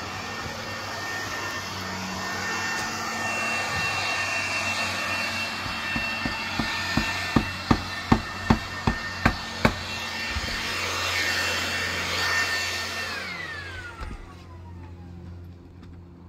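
A motor-driven air tool, such as a blower, runs with a steady whine and rush of air, then winds down with a falling whine near the end. In the middle comes a run of about a dozen sharp knocks, two or three a second, from the roofing work.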